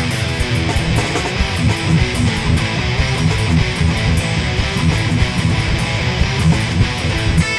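Hard rock band playing live: strummed electric guitars over bass guitar and drums, with steady cymbal hits.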